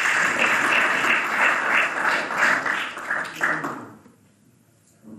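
Audience applauding, the clapping fading out about four seconds in.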